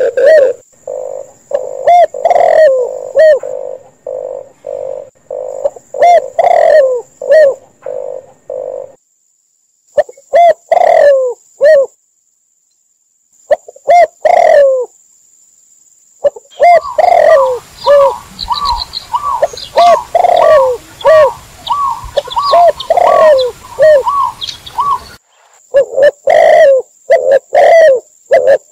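Doves cooing: spotted dove, red collared dove and zebra dove calls mixed together, repeated coos over and over. It breaks off twice into brief silence near the middle, and in the second half a run of quicker, higher coos joins in.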